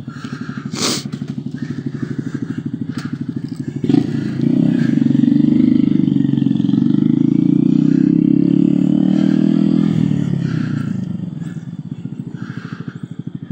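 Honda Grom's single-cylinder 125 cc four-stroke engine running under way, with a fast even pulse. About four seconds in it opens up and runs louder for several seconds, then eases off again near ten seconds. There is a single sharp click about a second in.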